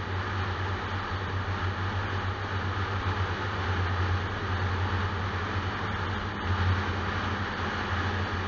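Car driving at a steady speed on an open road: a steady low engine drone under an even hiss of tyre and road noise.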